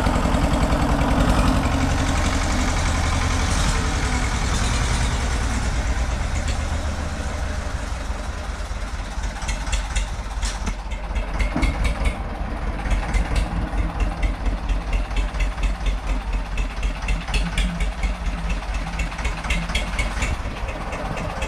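Diesel engine of a 1992 Escort 335 tractor running at a low idle while the tractor is driven slowly, its beat pulsing evenly.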